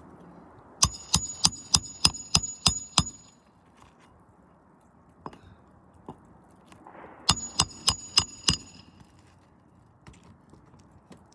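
Hammer striking metal on an asphalt-shingle roof, a quick run of about eight ringing blows, then after a pause a second run of about five, as nails are driven into the shingles.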